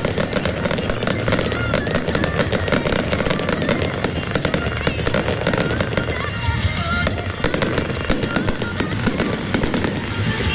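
Fireworks bursting and crackling in rapid, dense succession, with music playing alongside.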